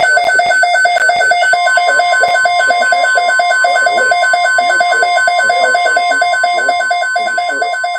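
Weather alert radio's electronic alarm sounding over a National Weather Service warning broadcast: a loud, rapid beeping about four times a second, with a steady tone joining about a second and a half in. It starts abruptly and cuts off suddenly near the end, and the synthetic voice reading the warning carries on faintly underneath.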